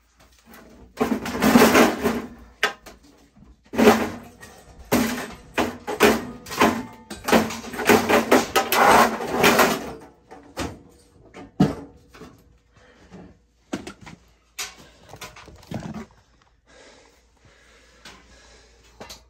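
Sheet-metal jacket panel of an old Lennox oil-fired furnace being lifted off and handled, scraping and rattling for several seconds, then a few scattered knocks and clanks.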